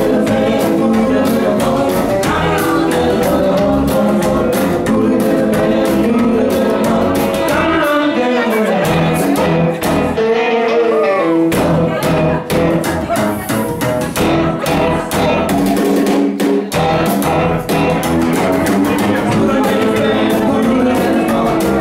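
A small live band playing: electric guitar over upright double bass and drum kit. About eight seconds in, the bass and drums drop out for a few seconds, leaving the guitar with some bending notes, then the full band comes back in.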